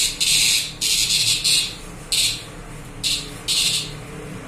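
A live green cicada held between the fingers buzzing in short, harsh, high bursts, about six in quick succession with short gaps. It is the distress buzz a cicada gives when it is handled or pressed.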